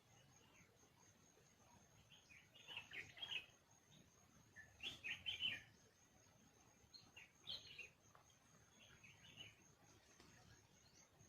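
Faint bird calls: four short bursts of several quick high notes, a couple of seconds apart, the second burst the loudest.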